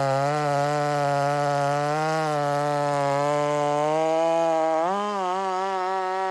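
Stihl MS 500i chainsaw running at high speed through a cut, a steady buzz whose pitch sags a little under load and rises briefly about five seconds in.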